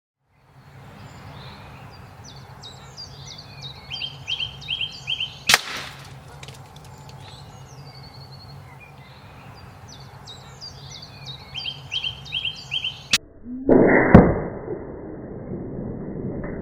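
A single sharp crack about five and a half seconds in: a Hatsan BT65 PCP air rifle firing a .25 Zan slug, over birdsong. Near the end comes a louder, deeper thump that trails off, muffled with no treble.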